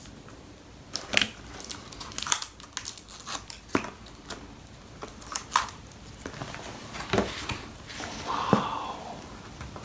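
Paper and packaging being handled: crinkling and rustling with irregular sharp clicks and taps.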